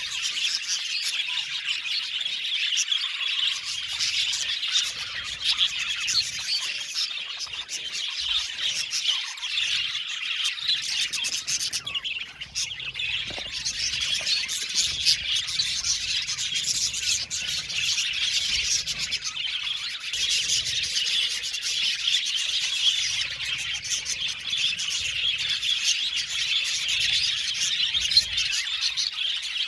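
A flock of budgerigars (budgies) chattering and chirping continuously, many birds at once in a dense, unbroken warble with occasional sharper squawks.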